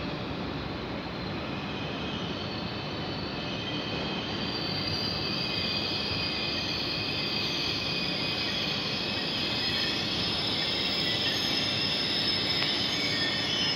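Deutsche Bahn ICE train rolling slowly along a station track, a steady running rumble with a high-pitched squeal that grows louder from about four seconds in.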